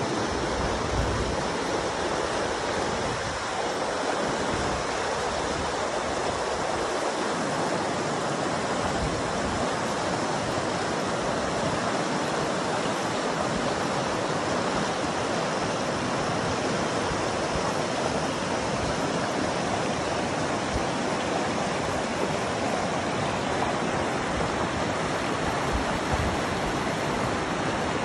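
A fast river rushing and splashing over rocks in shallow rapids: a steady, unbroken sound of running water.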